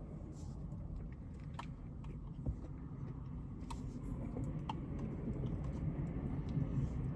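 Eating a Dairy Queen Blizzard: scattered light clicks and scrapes of a spoon in the cup and soft chewing, over a steady low hum.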